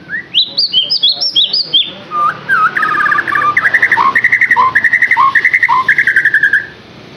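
A songbird singing: a quick run of high, clear whistled notes sliding up and down. After a brief pause, a fast rattling trill follows, broken by lower slurred notes, and the song stops about a second before the end.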